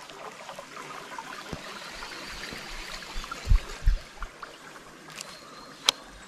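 River current flowing and trickling around a small boat, a steady rush of water. Two low thumps come about three and a half and four seconds in, and a single sharp click near the end.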